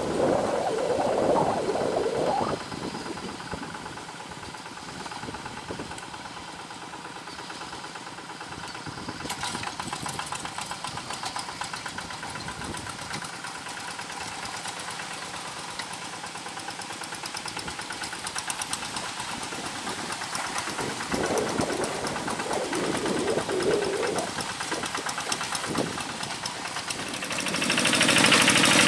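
Single-cylinder diesel engine of a two-wheel hand tractor chugging steadily under load as it pulls a harrow through a flooded rice paddy. It grows louder near the end.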